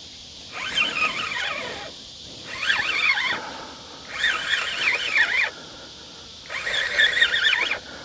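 Ugly Stik spinning reel being cranked under load in about four spurts of a second or so, giving a squeaky, wavering whine with each spurt: a hooked channel catfish being reeled in.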